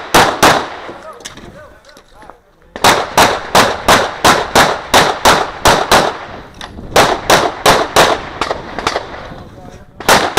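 Glock 17 9mm pistol fired in fast strings, about three shots a second, with short pauses between strings. Each shot is a sharp crack followed by a brief echo.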